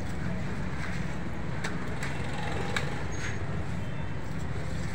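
Steady rumble of busy street traffic, with a few faint clicks from a knife cutting watermelon flesh into cubes.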